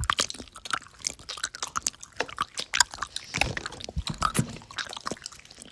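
Chewing close to the microphone: a quick, irregular run of crunches and small clicks.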